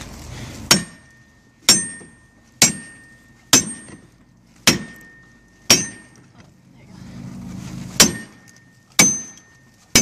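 Sledgehammer striking the back of a halligan bar, driving its adze into the hinge side of a steel door. About nine ringing metal-on-metal clangs, roughly one a second, with a pause of about two seconds after the sixth.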